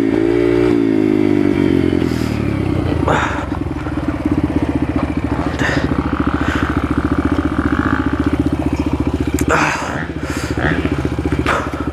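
Yamaha TTR125 dirt bike's single-cylinder four-stroke engine running while held in first gear, because the shift lever is bent in under the engine and can't be shifted up. Its note eases down over the first couple of seconds, then stays steady, with a few sharp knocks over it.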